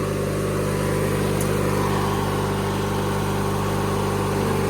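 Small engine of a 1997 MTD Yard Machines riding lawn mower running steadily, shortly after a cold start.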